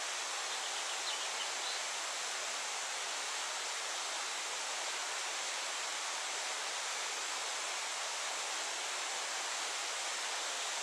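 Steady, even outdoor rushing noise with no clear rhythm or pitch, and a faint brief high chirp about a second in.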